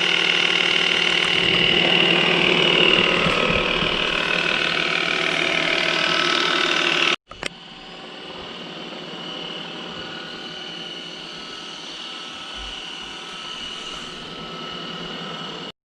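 Qihoo 360 S5 robot vacuum cleaner running, a steady mechanical hum with several held tones. About seven seconds in it cuts off abruptly. After a click it runs on much more quietly.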